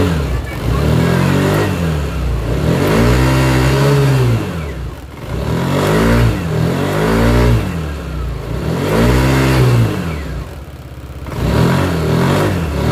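Yamaha Aerox 155 scooter's single-cylinder engine revved up and let back down about five times, the pitch rising and falling with each throttle opening. The CVT is free of its 'nguk' noise now that its oil-soaked parts have been cleaned and the clutch no longer slips.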